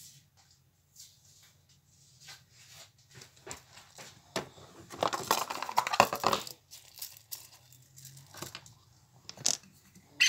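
Handling noise: scattered soft clicks and rustles, with a loud crinkling rustle lasting about a second and a half around the middle and a sharp knock near the end.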